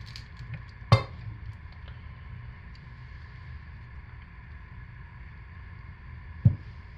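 A wire soap cutter slicing a loaf of soap: a sharp knock about a second in as the cutter comes down, and another knock near the end as the cut bar is set down on the stone countertop. Under it runs a steady low hum.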